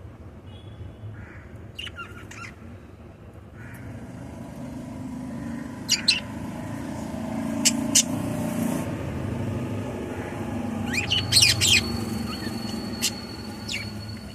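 Small pet parrots giving short, sharp chirps in scattered bursts, with a quick cluster of them near the end. Under them runs a low rumble that swells through the middle.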